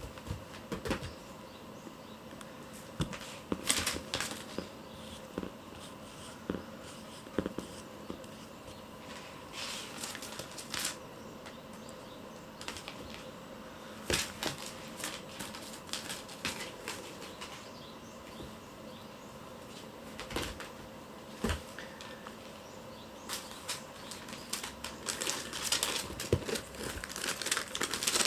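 Kittens playing with a cat teaser wand: rustling, scratching and light taps at irregular moments as they swat and pounce, busiest near the end.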